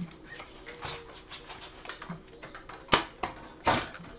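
Small clicks and taps of plastic and film parts in an LCD monitor's backlight assembly being handled and fitted by hand, with a sharp click about three seconds in and a louder knock shortly after.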